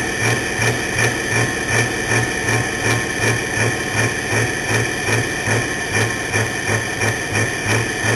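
Pulling tractor's engine idling with a regular lope, about three to four low pulses a second, and a steady high whine over it.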